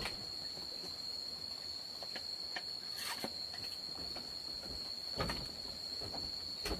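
A steady high-pitched insect drone, with a few scattered clicks and knocks over it.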